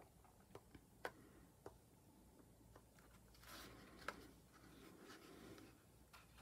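Near silence with a few faint taps and clicks and some light rustling of paper craft pieces being handled.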